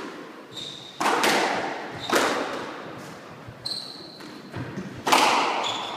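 Squash rally: three loud, echoing hits of racket and ball against the court walls, about one, two and five seconds in, with short squeaks of shoes on the wooden court floor in between.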